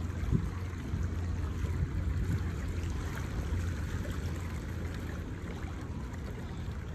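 Water lapping and splashing steadily at the harbour edge, with a low, uneven rumble of wind on the microphone.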